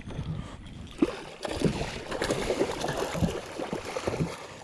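Water splashing and irregular knocks and handling noise as a hooked redfish is fought and brought in close.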